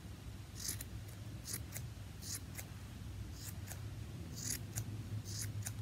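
Scissors snipping through the yarn of a pom-pom as it is trimmed, an irregular run of about a dozen short, crisp snips, often coming in pairs.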